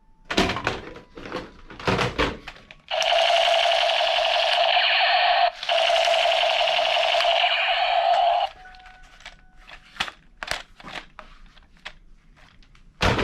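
Electronic sound effect of a battery-powered toy gun: a loud, fast buzzing rattle in two long bursts of about two and a half and three seconds, with clicks of the toy being handled before and after.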